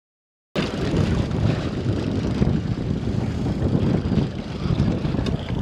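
Wind buffeting the microphone on an open boat at sea, a steady low rumble that gusts up and down, with water and boat noise underneath. It cuts in after half a second of dead silence.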